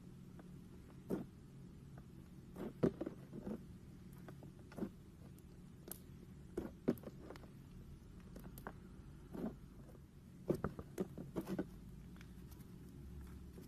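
Hands kneading, pressing and stretching a soft slime: irregular sticky clicks, pops and squelches, coming in short runs, over a steady low hum.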